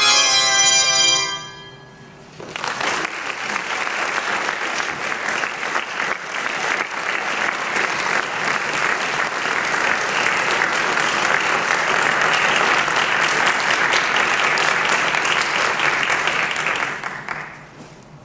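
A handbell choir's last chord rings and dies away in the first second or so. Then an audience applauds for about fifteen seconds, and the clapping tails off near the end.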